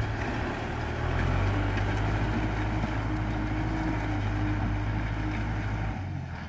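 Kubota M6040 tractor's four-cylinder diesel engine running steadily under load as it pulls a disc plough through the soil, a low even drone that drops a little near the end.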